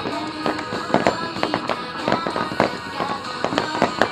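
Starmine fireworks barrage: shells bursting in quick succession, several sharp bangs a second, over music playing with the show.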